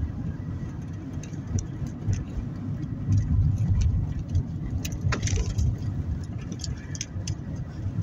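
Car driving slowly over a rough, cracked lane, heard from inside the cabin: a steady low rumble of tyres and engine with scattered clicks and rattles, several of them together about five seconds in.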